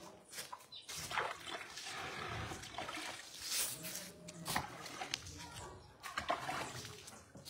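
Water splashing in a plastic bucket and on a wet dog's coat as it is scooped up and rubbed in by hand, in irregular bursts, with the dog panting.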